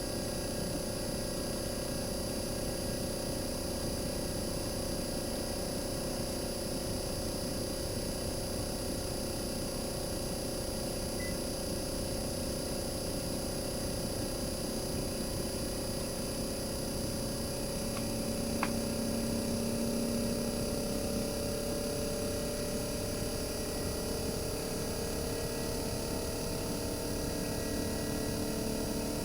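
Bare RECHI 43W26SH single-rotary inverter compressor from a Sharp AU-J25XY air-conditioner outdoor unit running steadily with a mix of humming tones. Over the second half its pitch slowly rises as the inverter speeds it up. A single sharp click comes about two-thirds of the way in.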